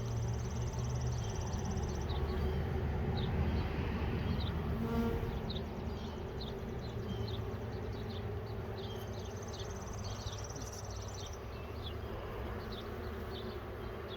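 Honeybees buzzing around an open hive: a steady low hum of many bees.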